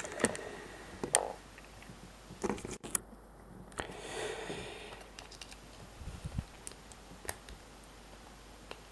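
Lock picking in a brass Viro 50 mm cylindrical padlock: a stiff pick ticks and scrapes against the pins while a top-of-keyway tension wrench holds the plug. The result is scattered quiet metallic clicks, with a short scrape about four seconds in.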